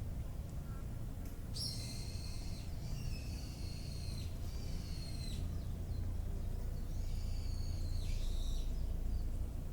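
A songbird singing two long, high-pitched phrases of several notes each, the first starting about one and a half seconds in and lasting about four seconds, the second shorter, near the end, over a steady low rumble.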